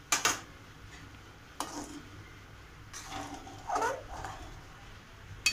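Stainless-steel spatula stirring milky vermicelli in an aluminium pan, with a few sharp metal clinks as it knocks against the pan, the loudest right at the start.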